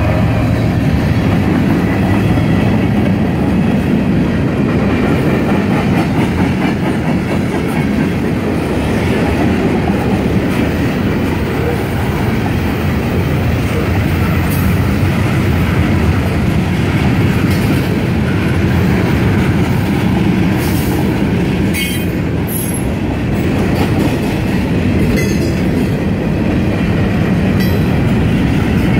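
Freight cars of a long mixed train, covered hoppers and bulkhead flatcars, rolling past at steady speed: a continuous rumble of steel wheels on rail with clickety-clack over the joints. Now and then, mostly in the second half, there is a brief sharp high squeal from the wheels.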